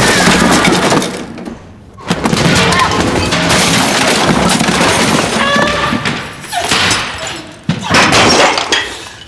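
Glassware and bottles smashing and crashing over and over, in three long loud stretches with glass ringing through the noise.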